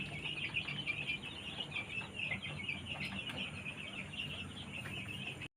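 Chickens calling: a dense, continuous run of short high peeps over a low steady hum, cutting off suddenly near the end.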